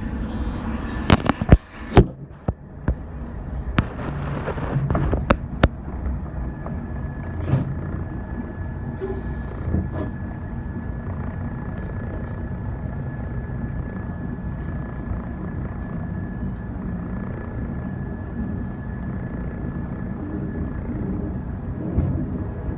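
Inside a 415 series electric train: a handful of sharp, irregular clicks and knocks in the first six seconds, then the train's steady running rumble with a thin, steady tone above it.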